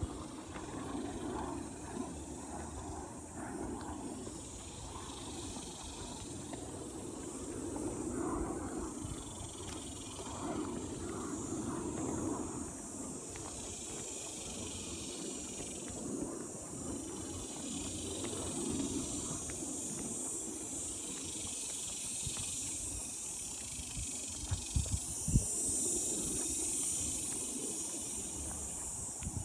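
Footsteps on a gravel trail under a steady high insect drone that grows louder near the end. A few sharper knocks come about five seconds before the end.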